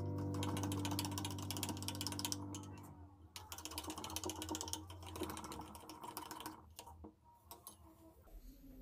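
An orange plastic spoon stirring liquid briskly in a small ceramic bowl: rapid ticking and scraping against the bowl in two spells, then a few scattered clicks. Background music fades out about three seconds in.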